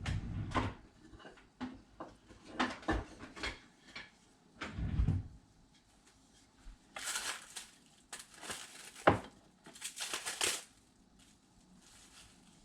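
Kitchen handling sounds: scattered knocks and clatters of cookware and containers, with two short rustling or crinkling spells past the middle.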